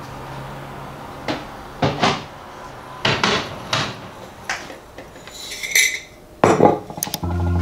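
Kitchen handling sounds: a fridge door and plastic containers knocking and clunking on a worktop, about ten separate knocks, the loudest one about three quarters of the way through. Music starts just before the end.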